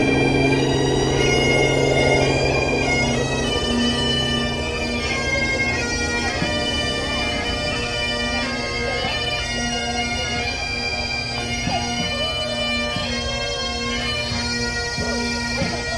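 Bagpipes playing a tune over steady drones; the lower drone drops out about four seconds in while the melody carries on.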